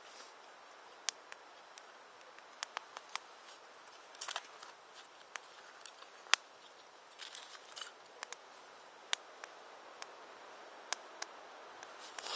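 Wood campfire crackling: sharp, irregular pops and snaps over a faint hiss, the loudest pop about halfway through, with brief rustling twice.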